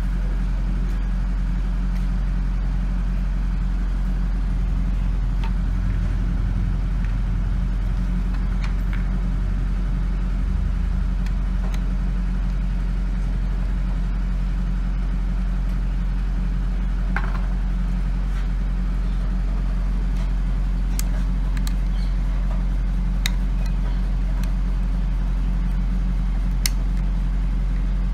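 A steady low machine hum, with a few faint light clicks of small parts and tools being handled.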